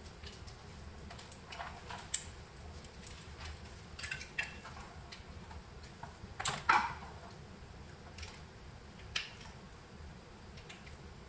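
Scattered clicks, snaps and light scrapes of gloved hands breaking and prying support material off a 3D-printed plastic skull, the loudest snap a little past halfway.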